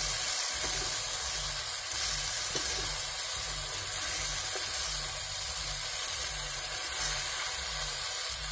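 Mutton pieces sizzling in hot oil and masala in a large metal kadhai, a steady hiss throughout, while a metal ladle stirs them in, with a few faint scrapes.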